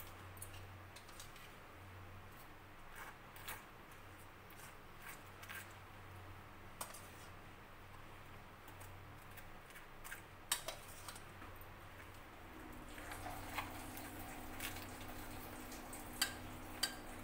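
A metal spoon clinks and scrapes against a small steel bowl and a ceramic bowl as mango pulp is spooned onto pooris, with a few sharper clinks in the second half. A low steady hum sits underneath, and a second, higher hum comes in about two-thirds of the way through.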